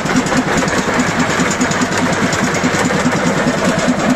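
Diesel engine of a narrow-gauge locomotive idling, heard close beside its engine-compartment grilles, with a steady, even beat of about four to five pulses a second.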